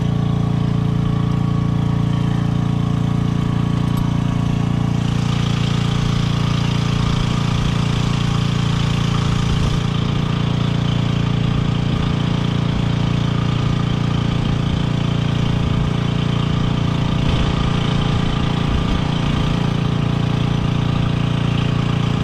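An engine running steadily at idle, a constant low drone. A hiss over it grows stronger about five seconds in and eases near ten seconds.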